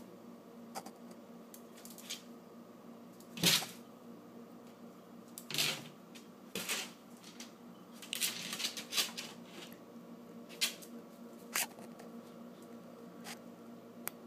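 A small dog's claws clicking and scrabbling on a tile floor as it darts and jumps: scattered taps and short scuffles, the loudest about three and a half seconds in and a quick flurry around eight to nine seconds. A steady low hum runs underneath.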